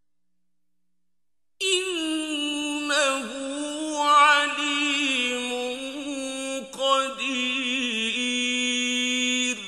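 A man's voice chanting Quran recitation: after a second and a half of silence, one long drawn-out melodic phrase with held notes and wavering ornaments that runs until just before the end.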